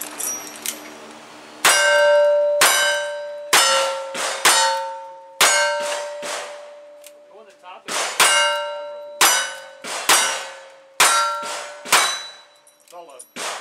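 Single-action revolver shots, about one a second in two strings of five with a short pause between them. Each hit leaves the steel plate targets ringing.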